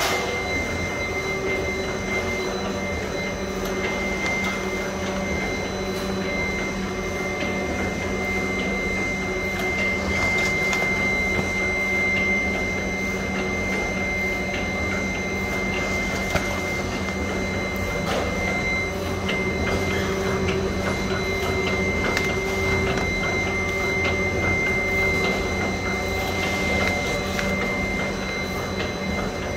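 A narrow-web label printing and die-cutting machine running steadily. Its steady mechanical hum carries a high-pitched whine and light clicking.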